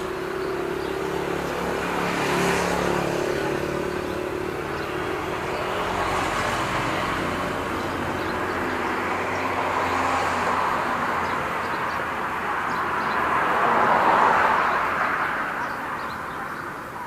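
Road traffic passing by: several vehicles swell and fade in turn over a steady background noise, the loudest pass about three-quarters of the way through.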